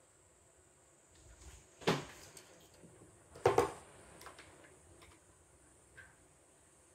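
Two sharp knocks of hard objects being handled in a kitchen, about a second and a half apart, with a few lighter taps around them.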